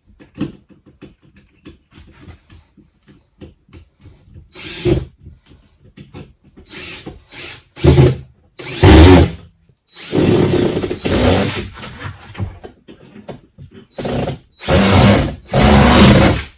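Cordless drills driving plasterboard screws in a series of short whirring bursts, most under a second, one about two seconds long, each screw sunk just under the board's surface. Light clicks and taps fill the first few seconds.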